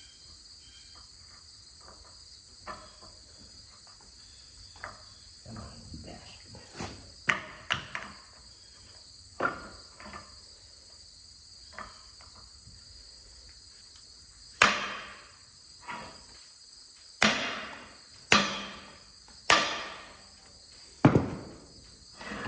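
Metal striking metal on the baler: scattered light knocks, then five loud, sharp blows in the second half, each ringing briefly as it dies away, as burnt debris is knocked loose. A steady high insect trill runs behind it.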